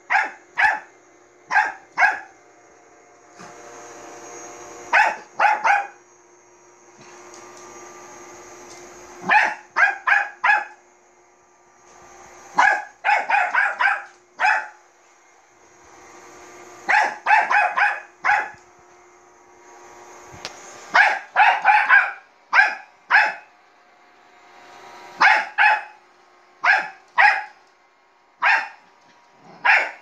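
Bichon frise barking at a running robot vacuum cleaner, in repeated quick clusters of two to five sharp barks every few seconds. Between the barks the vacuum's steady motor hum with a faint high hiss is heard.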